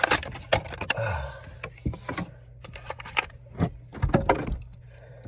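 Crackling and clicking of a plastic blister pack and card being torn open to free a Hot Wheels die-cast car, in irregular sharp bursts.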